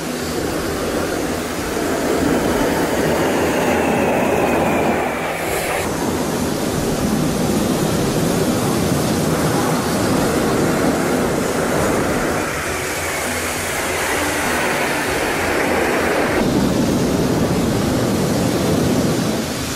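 Jet engines of MiG-29 and Sukhoi fighter formations flying overhead: a dense, loud rushing rumble. Twice, a high whine falls in pitch as a formation passes, and each time the sound cuts off abruptly.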